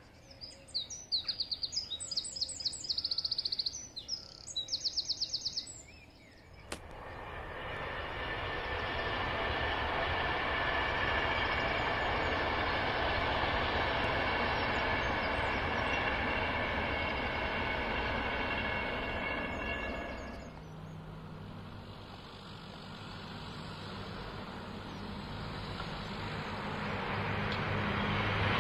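A small bird sings short repeated trilling phrases for the first few seconds. From about seven seconds in, a long passenger train passes with a steady rush of wheels on rail and a faint whine, dropping away about twenty seconds in. Near the end, the low diesel hum of an approaching pair of Avanti West Coast Class 221 Super Voyager diesel-electric units grows louder.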